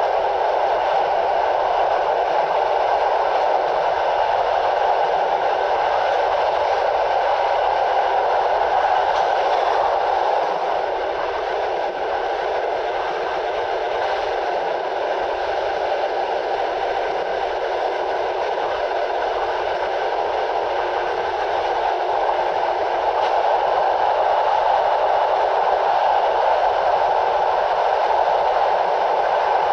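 Passenger train running at speed, heard from a coach window: a steady rush of wheels on rails and passing air, with the wind noise on the camera microphone reduced by processing. It drops a little in loudness in the middle and comes back up near the end.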